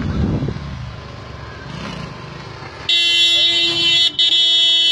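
Low motor vehicle rumble at first, then about three seconds in a vehicle horn sounds, one loud steady blare held for about two and a half seconds with a brief break partway through.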